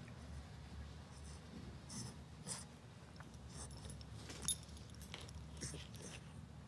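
Bulldog puppy shifting on a blanket in a wire crate: soft scattered rustling and scratching, with one sharp metallic clink of his collar tag about four and a half seconds in.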